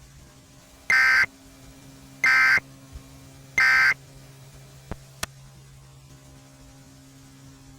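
Emergency Alert System end-of-message code: three identical short bursts of buzzing data tones, each about a third of a second long and spaced about 1.3 s apart, signalling that the alert has ended. A faint steady hum runs underneath, with two faint clicks about five seconds in.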